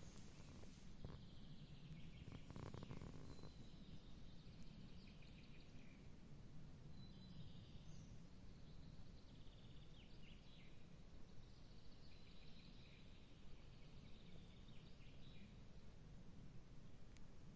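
Faint birdsong: a songbird singing short phrases every few seconds over a low, steady background rumble.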